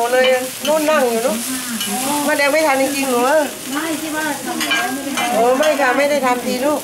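Metal spatulas scraping and stirring on a wide flat frying pan, giving a wavering squeal that bends up and down with each stroke, over the sizzle of egg batter and bean sprouts frying.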